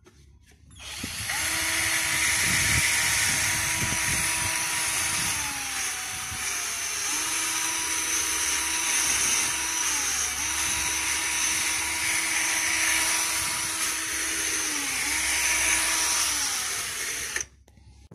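Cordless DeWalt drill spinning a brush attachment against a wet, foamed alloy wheel: a steady motor whine over a loud hissing scrub of bristles on the rim. The whine slows and speeds up again three times. It starts about a second in and cuts off suddenly near the end.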